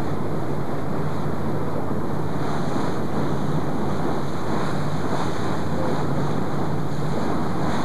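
Steady wind noise on the camcorder microphone over the rush of sea water, with a low, even drone of a boat's engine beneath.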